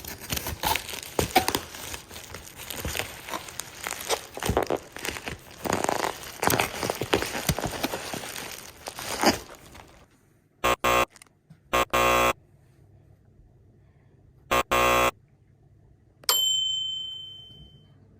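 Packaging crinkling, rustling and tearing as a boxed fire alarm is unwrapped, then several short, loud buzzing beeps in quick groups and a single metallic clink that rings on for about a second and a half near the end.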